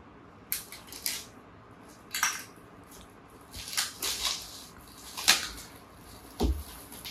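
Box and packaging being handled during an unboxing: a run of short, irregular rustles, scrapes and clicks. There is a sharper click a little past five seconds and a dull knock about six and a half seconds in.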